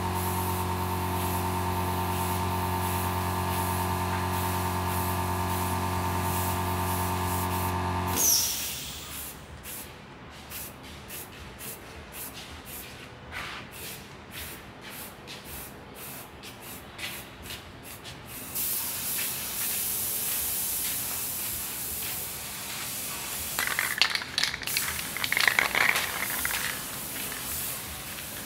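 Aerosol spray-paint can hissing in short bursts and longer sprays. A steady motor hum, louder than the spraying, cuts off abruptly about eight seconds in.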